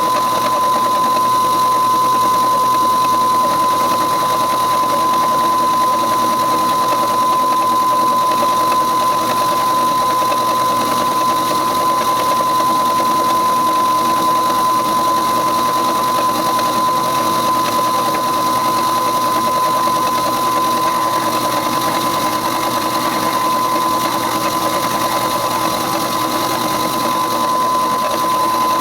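Milling machine driving a slitting saw through half-inch-thick steel, a steady cutting whine with one strong high tone held unchanged.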